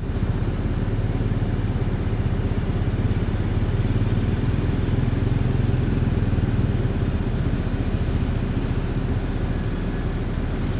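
Hitachi excavator's diesel engine running steadily with a low, rapid pulsing as the machine climbs a slope.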